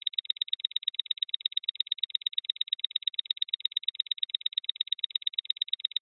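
Countdown-timer sound effect: a clock ticking quickly and evenly, several crisp ticks a second, marking the seconds until the answer is revealed.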